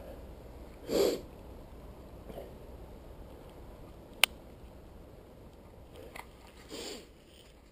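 Steady low rumble of a mountain bike rolling on a dirt trail, with two short noisy rushes, about a second in and near the end, and one sharp click a little past the middle.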